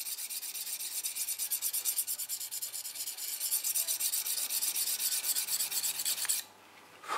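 A medium-grit hand sharpening paddle rubbed back and forth along a knife's edge bevel in quick, even strokes, making a dry, high scraping hiss. The strokes stop suddenly near the end.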